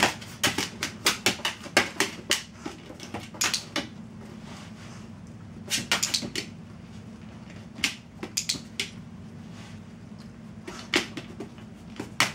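A dog's claws clicking and scraping on a metal cookie sheet as it shifts its paws on it: irregular clusters of sharp taps, thickest in the first three seconds and again around six and eight seconds in.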